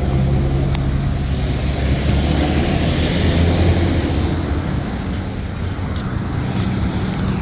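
Road traffic at an intersection: motor vehicle engines running with a low hum and tyre noise that swells as vehicles pass a few seconds in. Two faint short clicks stand out, near the start and about six seconds in.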